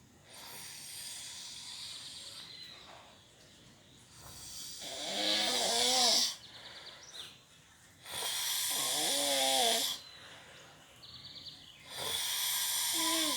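A woman snoring in her sleep: a quieter breathy snore, then three loud rasping snores about every four seconds, each carrying a wavering pitched tone.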